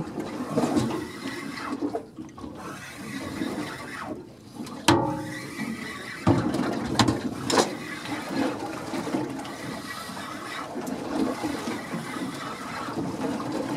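Water sloshing and splashing against a small boat's hull, with a single sharp knock about five seconds in.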